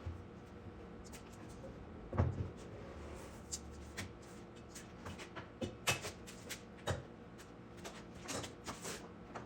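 Scattered light knocks and clicks of wood and tools being handled on a workbench, with a louder thump about two seconds in; no power sander is running.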